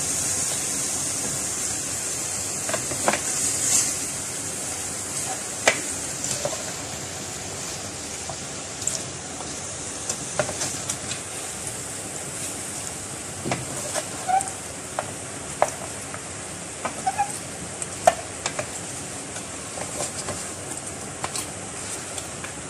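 Wooden spatula stirring raw chicken pieces in liquid in an aluminium karahi: irregular scrapes and knocks of wood against the metal pan, over a steady high hiss that slowly fades.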